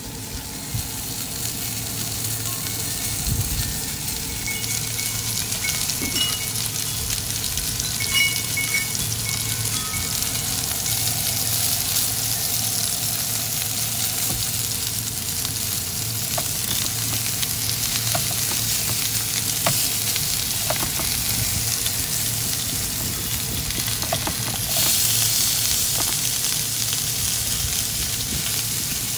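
Asparagus, baby potatoes and a herb-buttered steak sizzling and frying in oil in a nonstick frying pan on a portable stove. The sizzle gets louder about 25 seconds in.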